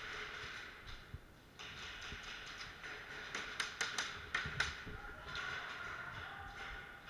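A quick string of about six sharp snaps a little past the middle, airsoft gun shots, over a steady hiss with faint background music.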